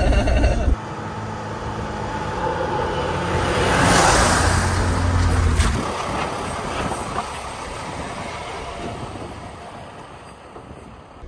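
Diesel van driving over a dirt road past a low camera: tyre and engine noise swells to a peak about four seconds in, then fades away. It opens with a loud low rumble that cuts off under a second in.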